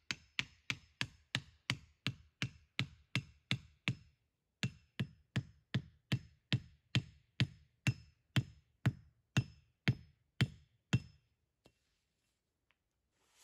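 A hand tool striking wood in a steady rhythm, about three blows a second, each a sharp knock with a slight ringing tone. The blows pause briefly about four seconds in, then stop about eleven seconds in.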